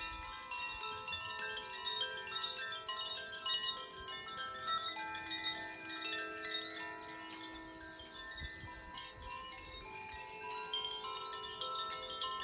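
Hand-played wind chimes: many tuned rods strike in quick, irregular succession, so overlapping bell-like tones ring on without a break.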